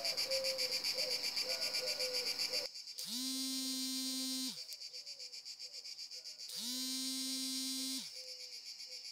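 A cicada's high, rapidly pulsing buzz. About three seconds in, and again at about six and a half seconds, it is broken off by a steady low humming tone lasting about a second and a half that slides up at its start. Between the tones the buzz is fainter.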